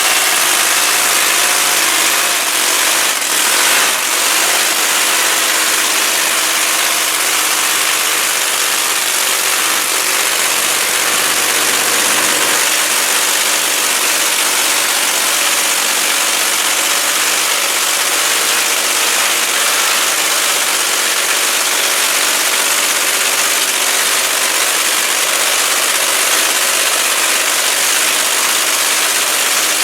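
Big drag-racing truck engine idling loudly and steadily, with a harsh, hissy exhaust note.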